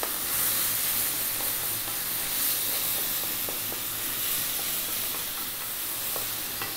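Chicken strips, sliced mushrooms and onion sizzling steadily in a wok on high heat, stirred with a wooden spatula that scrapes against the pan now and then.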